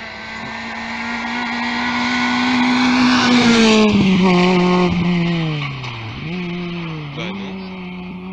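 Rally car engine at high revs approaching, loudest as it passes close about four seconds in. Its pitch then drops, and the revs fall and pick up again twice as it drives away.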